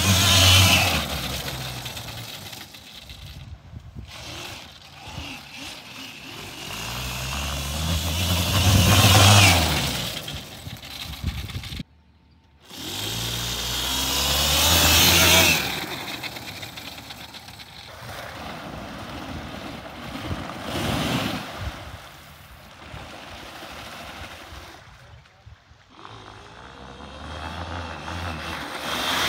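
Electric quad with a QS180 motor and chain drive being ridden hard on sand with paddle tires. Its motor and chain whine rises and falls over the spray of sand, in repeated surges that are loudest near the start, about nine seconds in and about fifteen seconds in. The sound drops out briefly about twelve seconds in.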